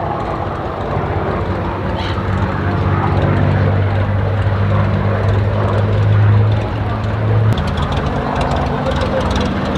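Aviat A-1C Husky floatplane's piston engine and two-blade propeller running at low power as it taxis on the water, a steady drone. The note changes about seven and a half seconds in.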